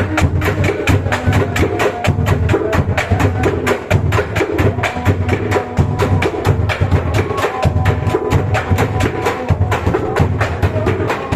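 Bedug, the large Indonesian mosque drum, beaten in a fast, steady rhythm: about six sharp strikes a second over deep booming hits.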